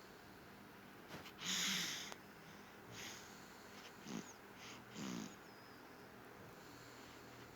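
A sleeping young child snoring: a few short snoring breaths with a low, rattling pitch, and a louder rush of noise about one and a half seconds in.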